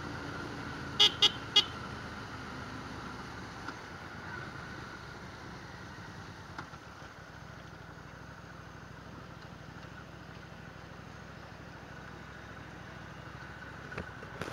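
Motorcycle engine and road noise while riding, with three quick horn toots about a second in. Near the middle the noise drops as the bike slows, settling into a quieter, steady low running.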